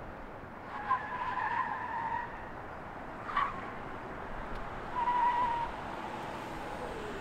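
Tires of a Ford F-150 Lightning electric pickup squealing on asphalt as it is driven hard: a squeal of just over a second about a second in, a short chirp in the middle, and a shorter squeal about five seconds in.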